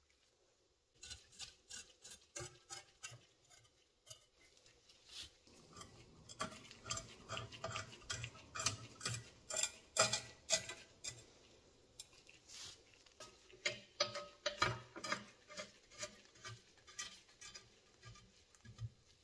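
Metal parts of an antique cast-iron meat slicer clicking and clinking in an irregular run of sharp taps and ticks, busiest in the middle and again later on.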